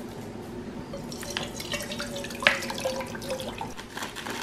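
Water trickling and dripping while things are handled. Small clicks run throughout, with one sharper click about halfway through.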